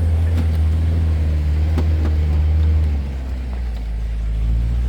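Toyota Hilux 2.8 four-cylinder turbodiesel pulling the truck uphill, heard from its open bed as a loud, steady low drone. About three seconds in the engine note drops lower and quieter as it eases off or changes gear. A few sharp knocks or rattles come through.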